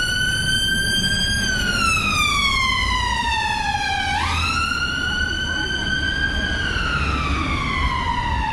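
Emergency vehicle siren sounding a slow wail. Each cycle rises quickly, then falls slowly over about three seconds. It sweeps back up about four seconds in and falls again near the end, over a low rumble of road traffic.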